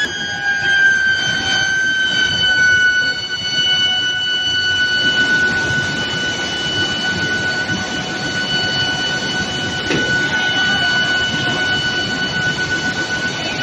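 Induction heating furnace giving off a steady high-pitched electrical whine with overtones, dipping slightly in pitch in the first couple of seconds and then holding, over a continuous mechanical noise.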